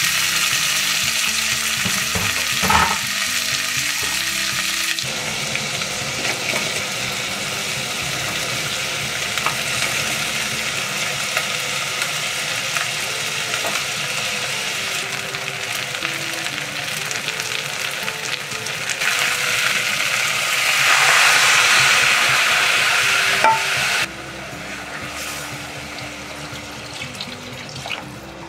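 Beef, onions and carrots frying in butter in a saucepan, with stirring: a steady loud sizzle that grows louder a few seconds before it drops abruptly near the end.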